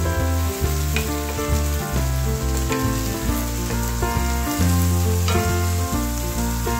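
Chopped onions and green pepper sizzling in hot oil in a pot while a wooden spoon stirs them, with a few light knocks of the spoon against the pot, over background music with a steady bass.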